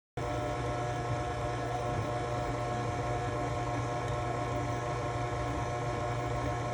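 Steady machine hum with several held tones over a strong low drone, starting abruptly and cutting off abruptly near the end.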